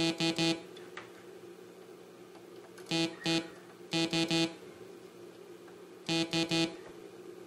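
Sequential Circuits Prophet-5 analog synthesizer playing the same note as short repeated stabs, in four quick groups of two or three, with a faint steady hum underneath. The note is being retriggered to check which of the five voices it is assigned to while hunting a voice whose oscillator drifts out of tune.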